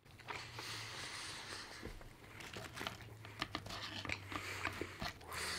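Close-miked chewing of a chicken burger, with many small soft mouth clicks over a faint low hum; near the end, a hand picking up fries.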